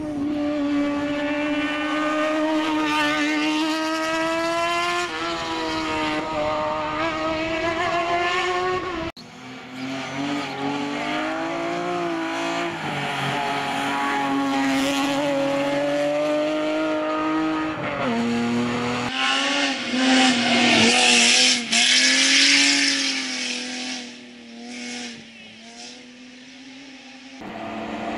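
Competition cars' engines running at high revs as they race past, one car after another, the pitch dipping at gear changes. Among them is a BMW E36 3 Series saloon. About twenty seconds in comes a loud burst of tyre noise.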